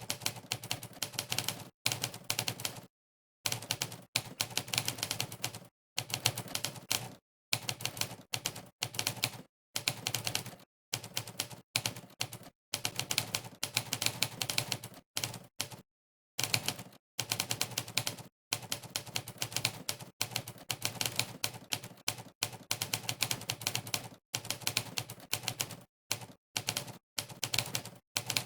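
Monkeytype's typewriter keypress sound effect, a sampled typewriter key strike played with each keystroke during a fast typing test: quick runs of clicks, many per second, broken every second or two by brief dead-silent pauses.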